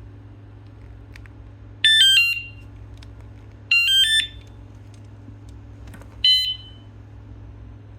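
Electronic alarm of a rechargeable bike alarm unit sounding three short chirping tone bursts, each a quick run of stepped pitches. The first comes about two seconds in, the second near four seconds, and a shorter one a little past six seconds, over a steady low hum.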